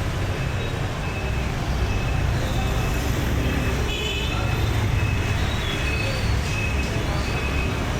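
Busy street traffic: a steady rumble of engines and road noise, with short high-pitched tones scattered through it.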